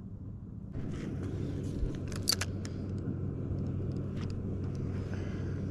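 Steady low drone of a motor running, joined just under a second in by a louder rushing noise, with a few sharp clicks of handling.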